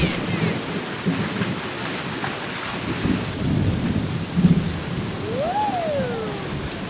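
Cartoon storm sound effects: steady rain with low rumbles of thunder. About five seconds in, a short whistling tone rises and falls.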